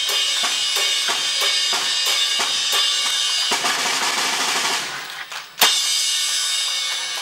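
Drum-kit music accompanying a stage juggling act: regular drum strokes about three a second under a constant wash of cymbals. About five seconds in it drops away briefly, then a single sharp bang, the loudest moment, and the cymbals ring on.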